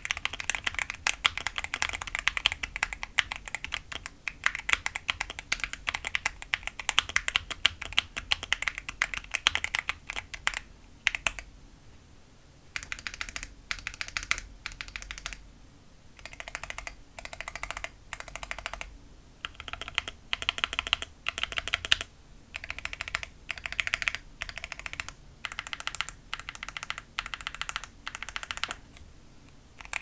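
Typing on a Poseidon65 (BM65) mechanical keyboard fitted with Moondrop Tessence switches and Domikey x Glove Fading Cherry-profile dye-sub keycaps. A fast, steady stream of keystrokes runs for about ten seconds, then gives way to short bursts of typing broken by brief pauses.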